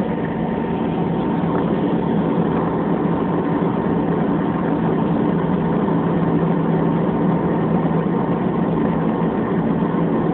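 Steady engine and air noise heard inside an airliner's cabin, a low even rumble with a faint steady whine, growing slightly louder.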